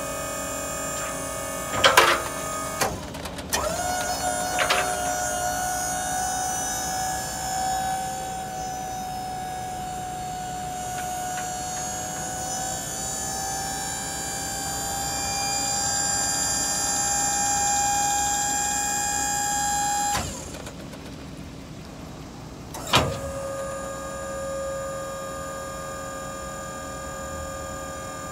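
Autocrane 5005EH crane's electric-hydraulic pump running with a steady whine while the boom lift cylinder raises the boom. The whine starts after a few clicks about two to four seconds in, climbs slightly in pitch, and cuts off suddenly about 20 seconds in. A sharp click comes about 23 seconds in, followed by a lower steady hum.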